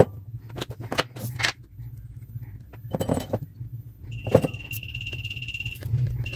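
Clicks, taps and small knocks of tools and metal parts being handled while a power adapter's transformer is taken out and moved. A low hum runs underneath. A steady high whine starts about four seconds in and breaks off briefly near the end.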